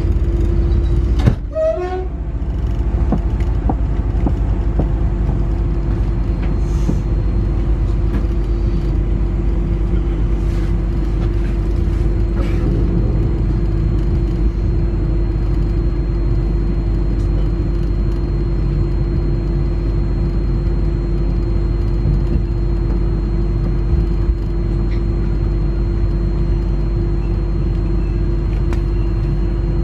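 Interior of a Newag Impuls 2 electric multiple unit standing at a station: a steady hum from the train's equipment and ventilation, with a constant tone. A brief clatter comes about a second and a half in.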